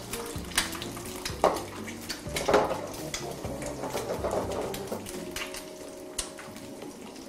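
Eggs frying in butter in a nonstick pan, sizzling with scattered sharp pops and clicks. Near the end a spatula knocks against the pan.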